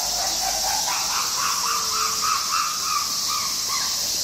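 Steady high buzz of cicadas. Over it comes a rapid run of short hoots, about four or five a second, climbing in pitch and then holding, like the build-up of a chimpanzee pant-hoot.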